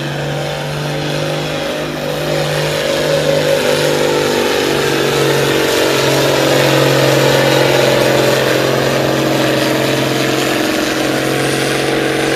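Farm stock pulling tractor's engine running hard under full load while pulling the weight sled, holding a steady pitch and growing louder toward the middle; it cuts off abruptly at the end.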